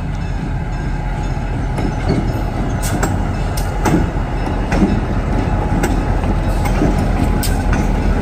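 Two diesel-electric locomotives, an EMD GP15-1 leading a second EMD unit, rolling slowly past close by: a steady low engine rumble, with irregular clicks and knocks from the wheels on the rail joints.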